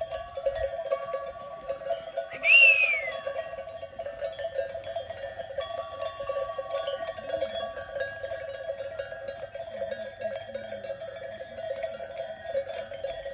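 Many sheep bells on a grazing flock, jingling steadily. About two and a half seconds in, a single short whistled call falls in pitch. Faint sheep bleats come later.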